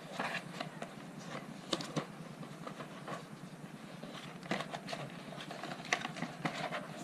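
Handling noise from a mini photo studio's flexible backdrop sheets being picked up, bent and shuffled: irregular rustles and light clacks, over a steady low hum.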